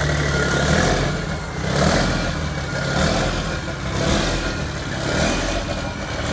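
Mercedes-Benz BTRC race truck's diesel engine running, its note swelling and easing a few times as the revs rise and fall.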